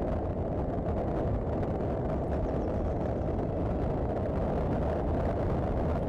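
Steady wind rumble and road noise on a vehicle-mounted camera's microphone while driving along at road speed, with no distinct engine note standing out.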